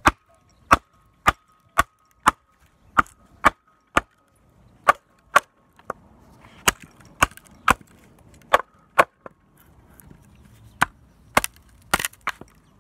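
A wooden baton striking the spine of a Ka-Bar Becker BK2 knife, driving the blade down into a hard log to split a slab off one side. About twenty sharp wooden knocks come roughly two a second, with a couple of short pauses, and a faint steady ringing tone lingers between them.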